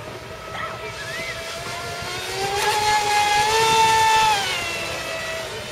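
Electric RC speedboat's 2200 kv 4074 brushless motor and aluminium prop whining at speed. About two and a half seconds in the whine climbs in pitch and grows loud as the boat comes close, with a rushing hiss alongside; after about four seconds it drops in pitch and fades as the boat moves away.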